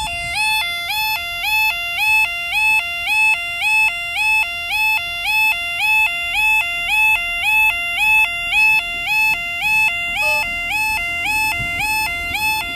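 Level crossing warning alarm sounding continuously. Its two-tone yodel alternates between a low and a high pitch about twice a second while the barriers are down for an approaching train.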